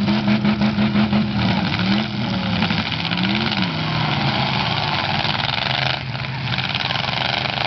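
Demolition derby cars' engines revving hard as they shove against each other with wheels spinning in the dirt. The engine is held at high revs for a moment, then rises and falls twice more.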